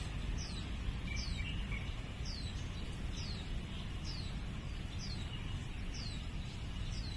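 A bird calling a short, high note that slides downward, repeated evenly about every three quarters of a second, over a steady low rumble.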